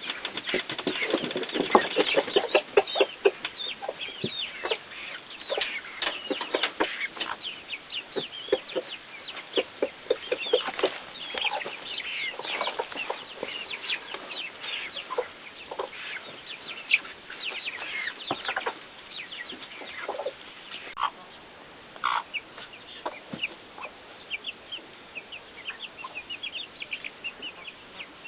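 Chickens clucking and chirping, many short calls overlapping, busiest in the first half and thinning out toward the end.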